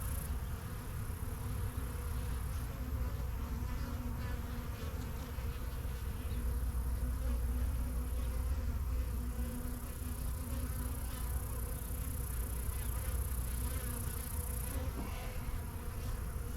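Many honey bees buzzing around an opened hive, a steady hum.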